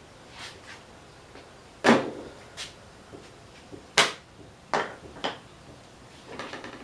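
Brad nailer driving brad nails into a wooden swing: two sharp shots about two seconds apart, followed by a couple of lighter knocks.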